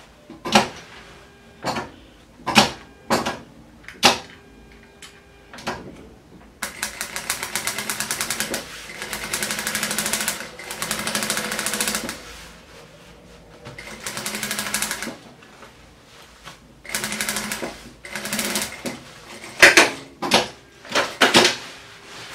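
Industrial sewing machine stitching in three runs, the longest about five seconds, as seams are sewn through a padded changing mat. Sharp knocks from the work being handled at the machine come before and after the stitching and are the loudest sounds.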